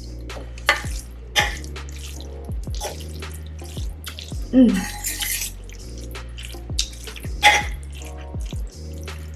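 Close-up mukbang eating sounds: spicy carbonara ramen noodles being slurped and chewed, with short wet smacks and a longer slurp about halfway through, over background music with a deep bass.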